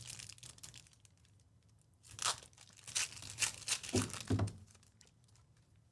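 A foil trading-card pack (Panini Select basketball) being torn open by hand: a faint rustle at first, then a run of tearing and crinkling of the foil wrapper in the middle, with a couple of dull bumps from the pack being handled near the end.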